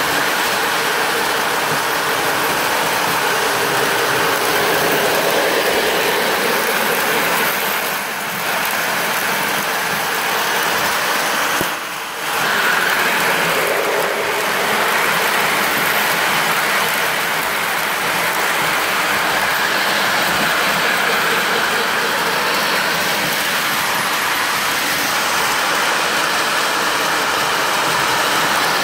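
Several Lionel electric toy trains running on ballasted three-rail track on a wooden floor: a steady rattling whir of motors and metal wheels on the rails. It briefly drops about a third of the way in, then swells as the Santa Fe diesel passes close.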